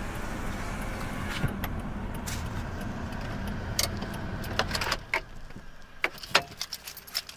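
Car engine running steadily, then shut off about five seconds in, followed by a series of sharp clicks and rattles, as of keys and parts of the car being handled after parking.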